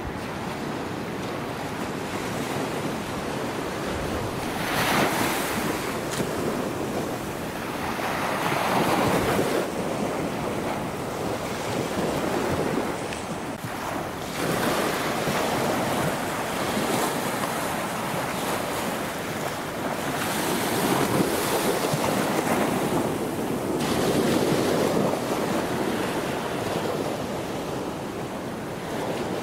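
Ocean surf breaking on a beach, the wash swelling and easing every few seconds, with wind buffeting the microphone.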